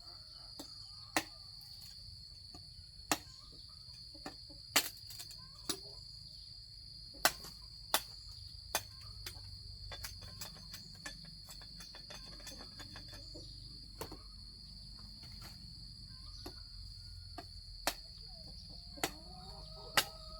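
Sugarcane stalks being chopped with a blade: sharp knocks at irregular intervals of a second or two. Under them runs a steady, high-pitched insect drone.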